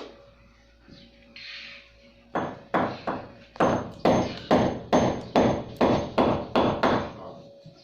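Hammer driving a nail further into the wall for a wall clock. About fourteen sharp blows at roughly three a second, starting a little over two seconds in.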